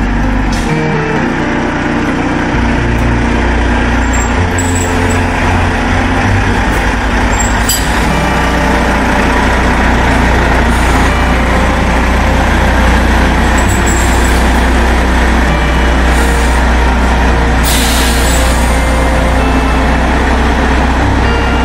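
Diesel engine of an Mk45 narrow-gauge diesel-hydraulic locomotive running close by with a steady deep rumble, and a brief hiss about three-quarters of the way through.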